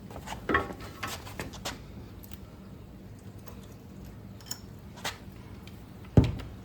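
Scattered clicks and knocks of a hand grease gun being worked on a grease zerk of a stump grinder, with a louder thump about six seconds in.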